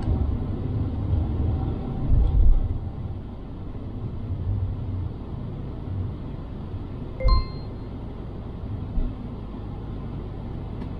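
Low engine and road rumble inside a moving car, swelling briefly about two seconds in. About seven seconds in comes a single short ding.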